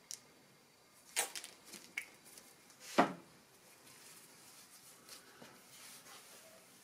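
A few short squirts and handling knocks from a plastic squeeze bottle of cutting board oil, the strongest about a second in and about three seconds in, as the oil goes onto a maple board and the bottle is set down. After that comes faint rubbing of a shop towel spreading the oil over the wood.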